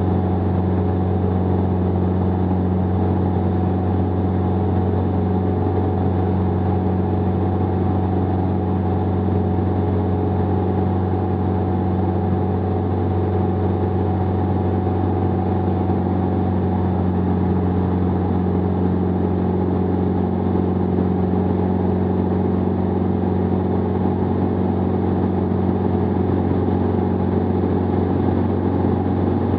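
Jabiru 2.2-litre four-cylinder, air-cooled, direct-drive aircraft engine and propeller running steadily at cruise power in flight, a constant low drone with no change in pitch.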